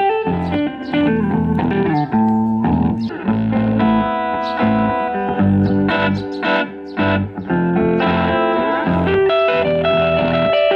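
Guitar playing an instrumental passage: plucked melody notes over a low bass line, with no singing.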